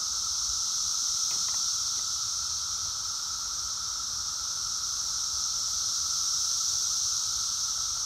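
Brood X 17-year periodical cicadas in full chorus: a steady, ear-splitting, high-pitched drone that never breaks, with a fainter lower steady tone beneath it.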